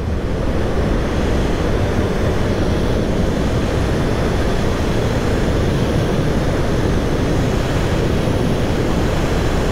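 Heavy wind rush buffeting the microphone, with road noise, as an electric motorcycle accelerates from about 65 to over 90 mph; a steady, dense rumble with no distinct engine note.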